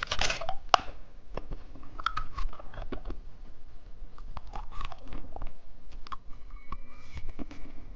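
Close-miked chewing of watermelon bubble gum, with scattered irregular mouth clicks.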